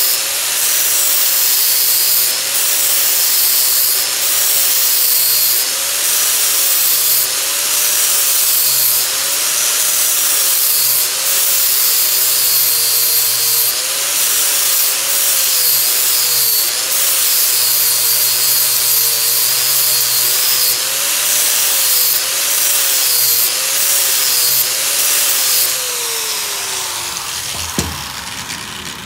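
Angle grinder grinding a weld bead down on steel plate, its motor whine dipping and recovering again and again as the disc is pressed into the metal. Near the end it is switched off and winds down, followed by a single knock.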